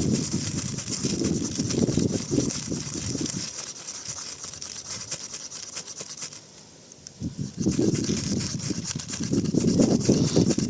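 Ferrocerium rod (fire steel) scraped over and over against a pile of wood shavings to throw sparks onto them, a continuous rasping that stops briefly about six and a half seconds in and then resumes.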